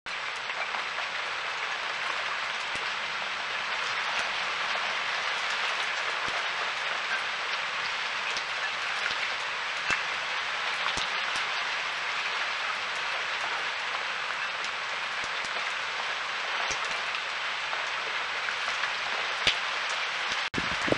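Heavy rain falling steadily, a continuous even hiss with a few sharper drips or taps standing out now and then. The sound drops out for a moment near the end.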